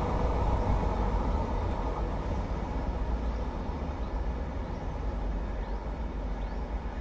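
Low rumble of a passing train heading away down the line, slowly fading.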